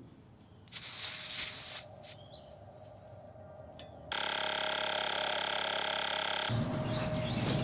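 A short hiss of air from a bicycle tyre's valve and a click as the hose is fitted, then a cordless electric bike pump running with a steady whine for about two and a half seconds before it stops, pumping the tyre toward 88 PSI.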